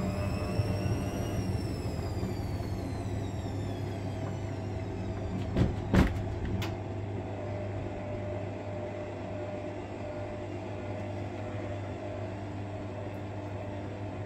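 Hotpoint Aquarius 1200 Plus washing machine in a heavy suds lock, its drum full of foam: a motor whine peaks about a second and a half in and then falls away as the drum slows, over a steady hum. Two knocks sound about six seconds in.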